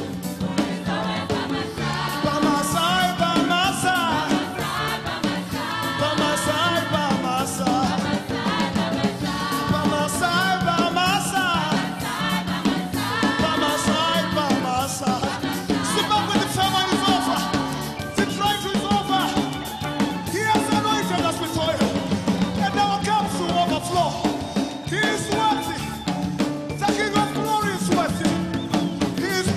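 Gospel choir singing with a live band: voices over keyboards, electric guitar, bass and a drum kit keeping a steady beat.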